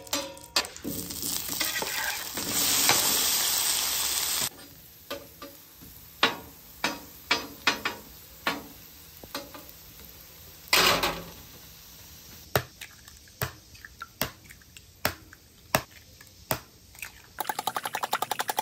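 Smoked beef tallow sizzling on a hot steel flat-top griddle as a metal spatula spreads it, cutting off suddenly about four and a half seconds in. Then scattered sharp taps of the metal spatula on the griddle among halved baby potatoes, one or two a second. Near the end, a fork beating eggs in a bowl with fast clicks.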